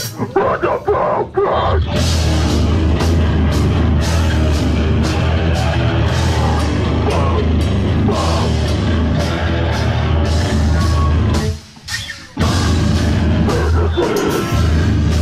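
Heavy metal band playing live, with distorted guitar, bass and drum kit. It opens with choppy stop-start hits, then settles into a dense, heavy groove. The band cuts out suddenly for about a second near the end and then crashes back in.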